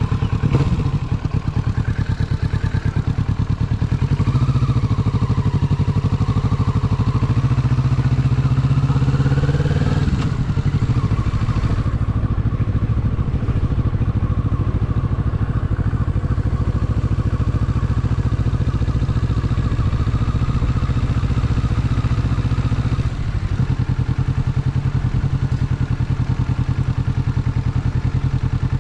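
Motorcycle engine running as the bike rides off at low speed. The revs climb gently over the first ten seconds, fall away sharply about ten seconds in, then hold a steady low beat with a brief dip near the end.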